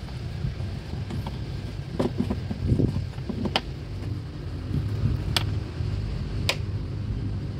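Hands handling the plastic air filter housing on top of a Toyota Avanza's engine: rustling and knocks, then three sharp clicks in the second half as its clips are worked, over a steady low hum.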